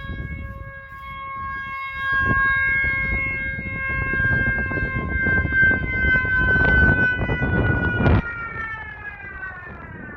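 Dam's outdoor warning siren holding a long steady wail, then sinking in pitch as it winds down over the last couple of seconds. Under it runs a low rumbling noise that swells about two-thirds of the way in.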